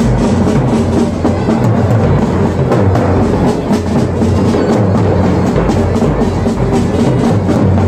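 Marching band drum section playing: big bass drums and smaller side drums beating together in a dense, steady rhythm.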